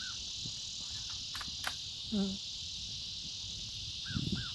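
Steady high-pitched insect chorus, with a few short chirps near the start and again near the end.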